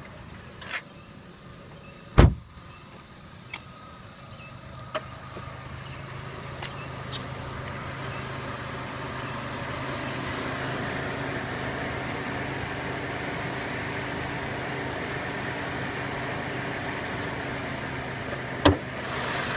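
Chevrolet Sonic LTZ's turbocharged four-cylinder engine idling steadily, growing louder over the first ten seconds or so and then holding even. A few light clicks and a sharp knock come about two seconds in, and another knock comes near the end.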